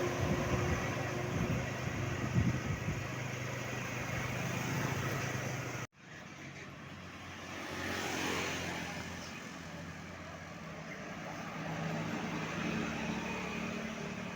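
Road traffic passing close by: engine and tyre noise, with one vehicle swelling and fading as it passes about eight seconds in. The sound cuts out abruptly for a moment about six seconds in.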